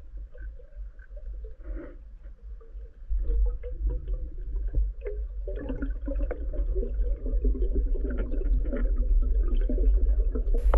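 Underwater ambience through the camera's waterproof housing: a steady low rumble of moving water with scattered crackling clicks. It gets louder about three seconds in and busier around the middle.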